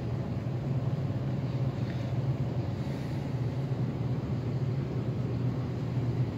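A steady low mechanical hum over a rumbling background noise.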